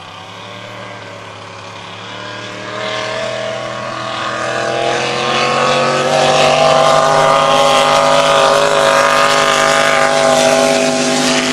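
Supercharged drag boat engine running hard on a pass. Its note stays steady in pitch while growing louder over the first several seconds, then holds loud.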